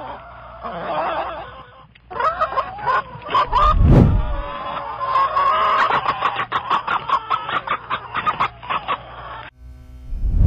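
A crowd of chickens clucking and squawking, many birds at once, broken by a short gap about two seconds in. A deep boom hits about four seconds in and again at the end, and held musical tones take over near the end.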